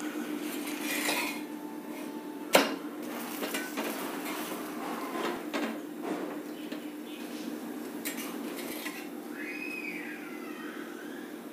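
Metal spatula scraping and clanking on an iron tawa as a ragi roti is turned and lifted off, with one sharp clank about two and a half seconds in. A steady low hum runs underneath.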